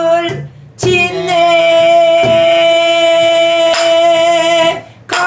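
A woman singing pansori: a short phrase, a breath, then one long held note with a slight waver, over a few slow strokes on a buk barrel drum keeping the jinyang beat.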